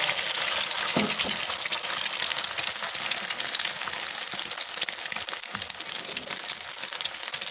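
Egg frying in hot oil in a wok: a steady sizzle with fine spitting crackles.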